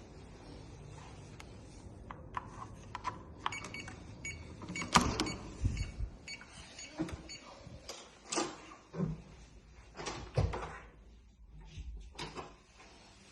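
Scattered knocks, bumps and clatter of objects being handled, with a louder thud about five seconds in and another about ten and a half seconds in.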